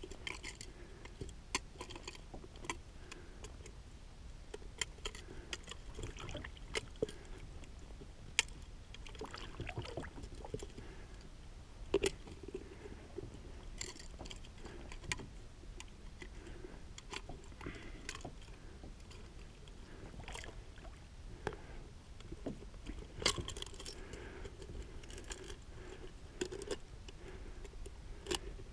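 Scattered, irregular sharp clicks and taps over a low rumble, from handling gear and a fish at the side of a kayak while a deeply set hook is worked out of a roosterfish's mouth.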